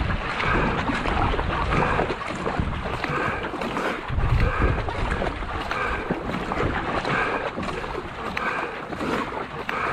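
Paddle strokes of a racing marathon canoe pulling through lake water in a steady rhythm, about one a second, with wind buffeting the microphone, strongest about four seconds in.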